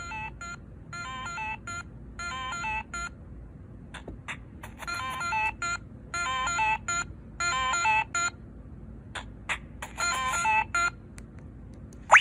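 A Sony Ericsson W995 ringtone playing from the phone's small speaker: a melody of quick, bright notes in short repeated phrases, with brief gaps between them.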